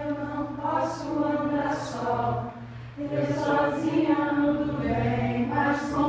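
A group of people singing a song together as they dance in a circle, with a short break between phrases about two and a half seconds in.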